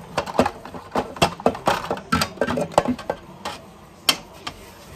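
Dishes and cutlery clinking and knocking together irregularly, several light clatters a second, as in washing up by hand.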